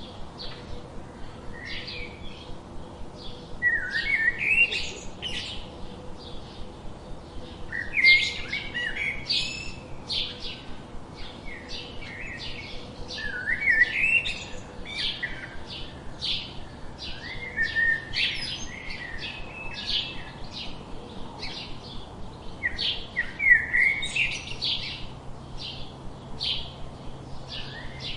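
Several songbirds chirping and singing at once: a dense stream of short high chirps with quick rising whistled notes, in louder flurries every few seconds.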